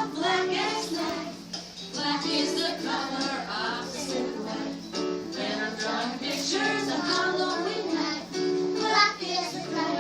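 A child's voice singing a melody over music.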